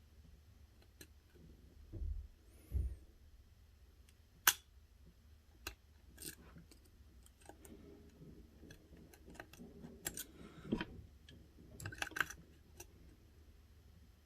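Lock picking: scattered light metallic clicks and ticks of a pick and tension wrench working the pins of a pin-tumbler lock held in a deep false set, with a few low handling knocks and one sharper click.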